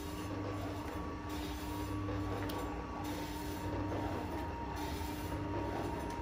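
Electric meat slicer running with a steady motor hum as smoked beef pastrami is pushed through its blade.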